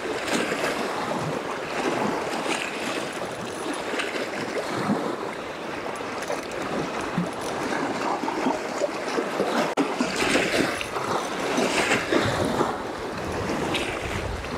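Small wind-driven waves breaking and washing over a rocky lake shore, a steady rush of water with louder surges about two-thirds of the way through.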